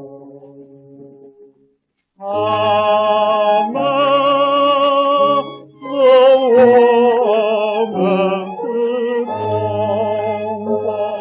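A 1932 Pathé 78 rpm record of a Chinese patriotic song, singing with instrumental accompaniment and played on a portable gramophone. A sung phrase fades out, the sound stops for about half a second around two seconds in, then the singing starts again on a new phrase with vibrato. The sound is narrow and lacks treble, as on an old acoustic-era record.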